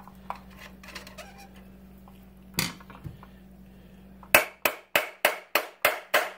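Sharp metal-on-metal taps, about three a second, starting about two-thirds of the way in: a tool hammering down on the rotor cartridge of a Grundfos circulator pump to drive it out of its motor housing. Before that, a few light clicks and one knock.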